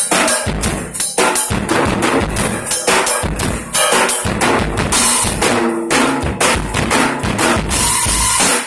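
Drum kit played solo in a fast freestyle: dense snare and tom strikes over bass drum kicks, with cymbals crashing throughout.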